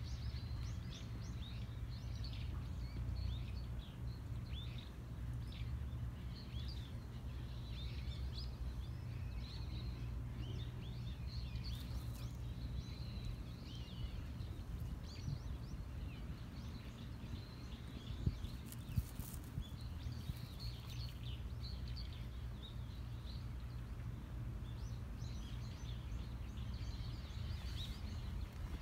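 Small birds chirping on and off throughout over a steady low outdoor rumble, with a few brief sharp clicks around the middle.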